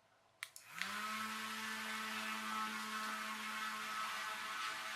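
Small propeller-driven toy trike's electric motor switched on by a remote-control relay switch: a sharp click about half a second in, then the motor and propeller spin up quickly and settle into a steady hum.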